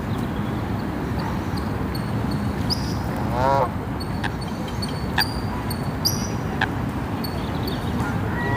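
A Canada goose gives one short honk about three and a half seconds in, over a steady low rumble. Small birds make short, high chirps throughout.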